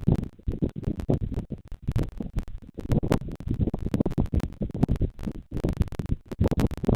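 Close, irregular scratching and knocking right against the microphone, many rapid rustling knocks a second with a few sharper clicks, like movement in sticks and nest lining next to the camera.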